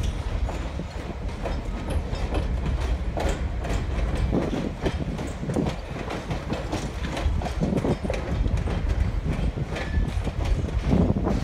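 Rolling train heard from aboard a car: a steady low rumble of wheels on track, with irregular clicks and knocks as the wheels pass over rail joints.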